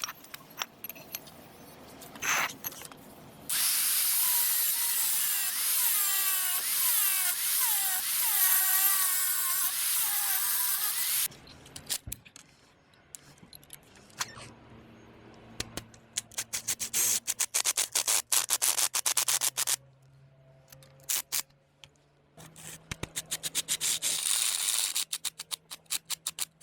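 Power tool running hard for about eight seconds with a wavering whine, then long runs of rapid clicking and rattling, twice.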